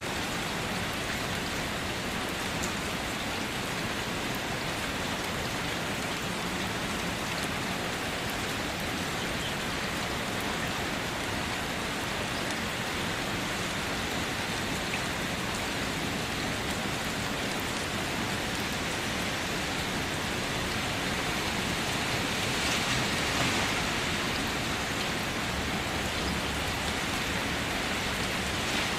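Steady light rain falling and pattering on surfaces, an even hiss with scattered drop ticks, swelling slightly about two-thirds of the way through.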